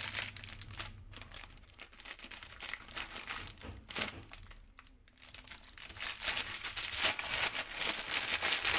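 Foil-lined plastic snack packet crinkling as it is handled, with a short scissor snip about four seconds in as it is cut open. The crinkling grows louder and denser from about six seconds in as the packet is pulled apart.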